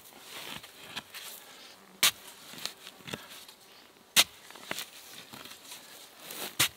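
A wooden digging stick stabbed into dry sandy soil, loosening it with a sharp crunch about every two seconds, three times. Between the strokes there are fainter gritty scrapes and ticks of sand and twigs.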